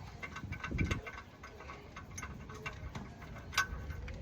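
Irregular light metallic clicks and taps of hand tools at work, with a dull low thump a little under a second in.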